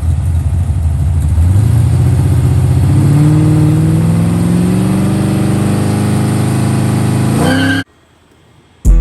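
Car engine accelerating, its pitch climbing steadily for several seconds, then cut off abruptly near the end; music with a beat starts just before the end.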